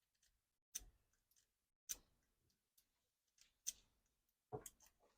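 Faint, sharp metallic clicks at irregular intervals of about a second: a lock pick being zipped across the pins of a pin tumbler lock, the pins snapping back each pass without the lock opening.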